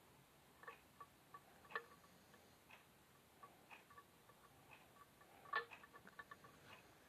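Near silence with faint, sharp clicks and ticks at irregular intervals, bunching together about five to six seconds in.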